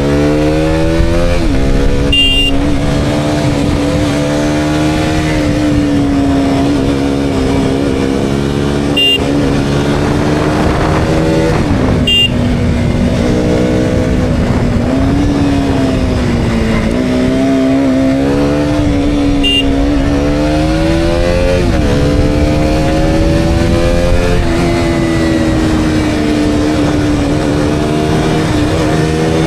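KTM Duke 200's single-cylinder four-stroke engine under way on the motorcycle, its pitch climbing at the start, then holding and rising and falling as the rider works the throttle, over steady wind and road rush. A few brief sharp ticks cut through.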